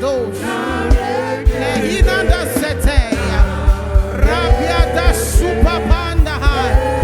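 Live gospel praise music: singing over a band, with a heavy kick drum that falls into a fast, steady beat about three seconds in.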